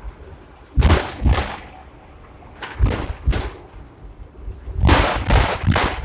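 Hong Kong tram No. 120, a fifth-generation double-decker, running on street track over a steady low rumble, its wheels clanking on the rails. The clunks come in groups of two or three about half a second apart, every two seconds or so.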